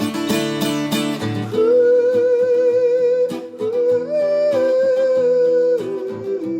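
Song accompaniment of acoustic guitar strumming chords; about a second and a half in, a held, wavering melody line comes in over the guitar and carries on until near the end.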